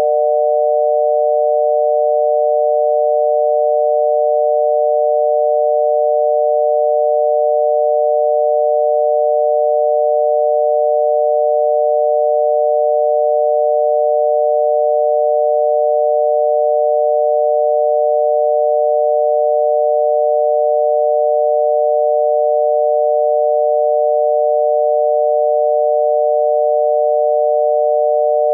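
Obsolete US telephone dial tone: a 600 Hz tone amplitude-modulated by a 140 Hz tone, sounding continuously without a break. It is the exchange's signal that it is ready to receive dialling.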